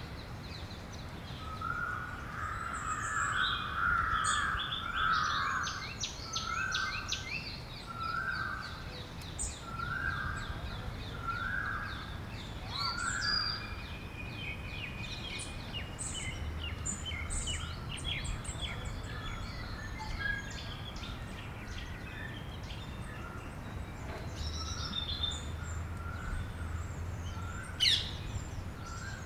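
Several birds chirping and calling over a steady low background rumble. One bird repeats a short call about once a second through the first half, while quicker high chirps and trills come throughout.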